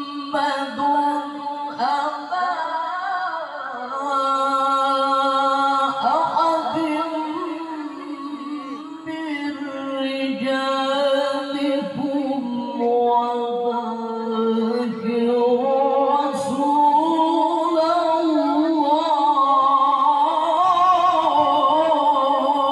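A male qari chanting Qur'an recitation (melodic tilawah) into a microphone in long melismatic phrases, holding wavering, ornamented notes with short breaths between them. His pitch climbs higher and louder in the last third.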